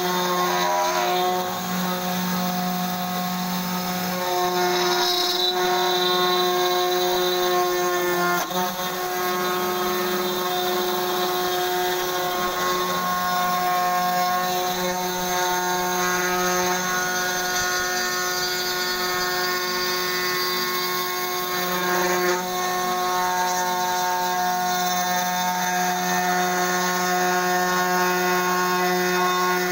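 CNC router with a 500 W spindle and 3 mm end mill milling a coconut half shell: a steady machine whine with several held tones, shifting briefly a couple of times as the cutter changes direction.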